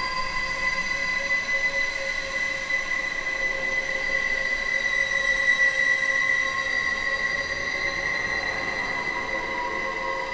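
Ghost sound effect: a steady, high-pitched eerie tone with overtones, held without a break and swelling a little about halfway through.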